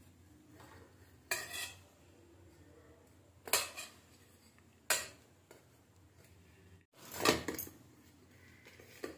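A steel plate clinking and knocking as a cooked paratha is handled on it: about five separate clinks, a second or two apart, with a quick double knock about seven seconds in.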